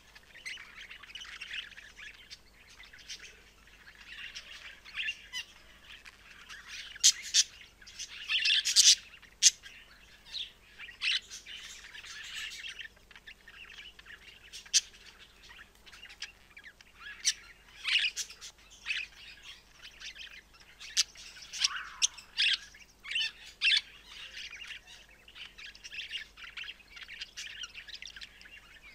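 Budgerigar (Melopsittacus undulatus) singing: a continuous rapid warbling chatter broken by many sharp chirps and short squawks, loudest about a third of the way in.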